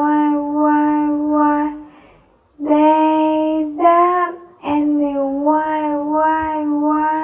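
A high voice sings drawn-out, held "why" syllables over and over at a steady pitch, in long phrases broken by short pauses.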